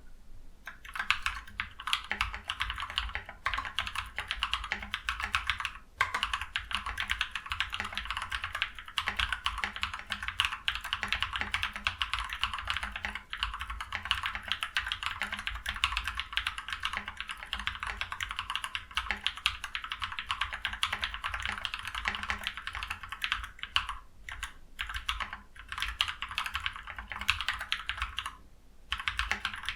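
Fast, continuous typing on a modded Ajazz K680T mechanical keyboard fitted with Feker Holy Panda tactile switches, lubed switches and stabilisers, a foam-padded case and PBT keycaps. Brief pauses come about six seconds in and near the end.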